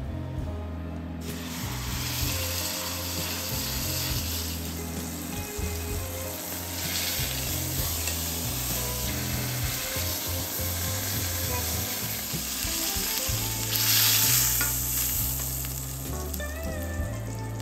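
A beef roast sizzling as it sears in hot oil in a stainless steel pan, the hiss starting about a second in as the meat goes into the oil. It swells louder for a moment near the end. Soft background music plays underneath.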